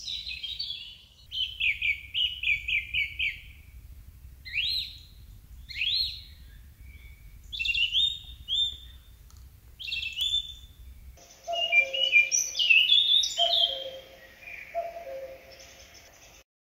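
Songbirds singing in a forest: first a quick run of repeated chirps, then scattered whistled phrases that sweep upward. About eleven seconds in, a lower, falling two-note call joins them and repeats three times.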